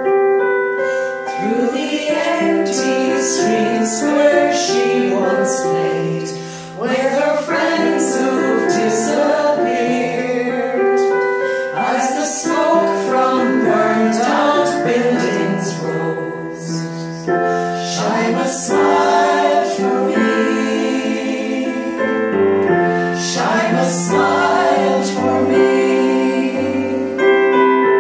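A women's vocal group singing a slow song together, with piano-style keyboard accompaniment. A low bass line comes in about two-thirds of the way through.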